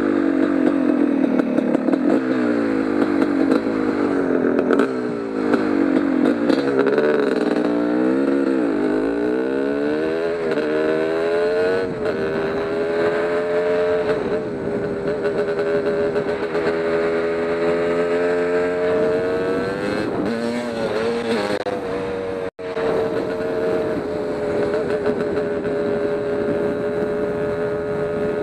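Kawasaki KX250 two-stroke dirt bike engine, heard close up from the rider's helmet. It revs up and down for the first ten seconds or so, then holds a steady pitch while cruising, with a brief cut in the sound a little after twenty seconds.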